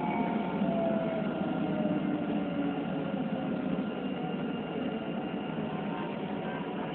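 Alstom Citadis tram on the Rabat-Salé line heard from inside the driver's cab: a steady running rumble with the electric traction motors' whine gliding down in pitch over the first few seconds as the tram slows, the overall sound easing off.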